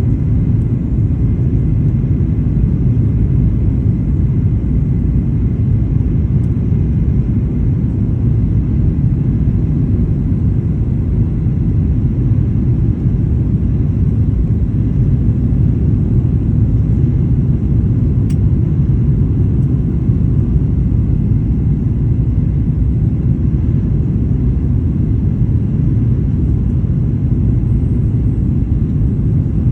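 Steady cabin rumble of a Boeing 737-800 in flight, its CFM56-7B engines and the airflow heard from a window seat in the rear cabin while the jet descends toward landing. The noise sits low and deep, with a faint thin whine above it.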